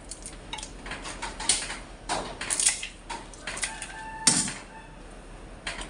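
Kitchen scissors snipping through raw shrimp shells: a run of irregular crisp cuts and clicks, the sharpest about four seconds in.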